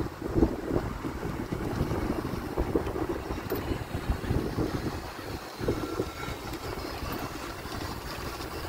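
Wind buffeting the microphone in uneven gusts over a low rumble.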